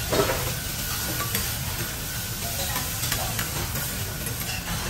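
Food sizzling on a hot flat steel teppanyaki griddle, with a loud burst of sizzle and steam just after the start as poured liquid hits the plate. Metal spatulas scrape and tap on the griddle as the food is turned.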